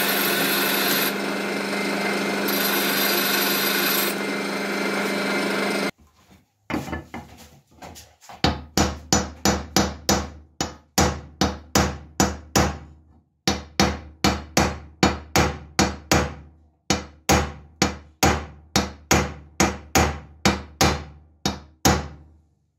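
A bench grinder running with metal being ground on its stone. Then a hammer strikes steel about twice a second, in several runs with brief pauses, peening the rivets of a machete's handle on a vise's anvil.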